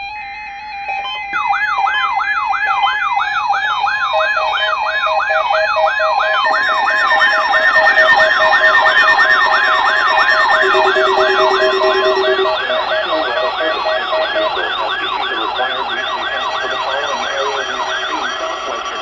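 Weather alert radios, among them a WX-268, sounding their alarms on a NOAA Weather Radio Required Weekly Test. A siren-like tone sweeps up and down about twice a second from about a second in, and other steady and pulsing beeps join over the next several seconds. The owner takes the WX-268's alarm on a weekly test for an improper activation.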